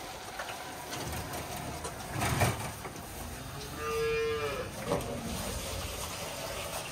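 A calf moos once, briefly, about four seconds in. A short, louder clatter comes a little before it, over steady background farm noise.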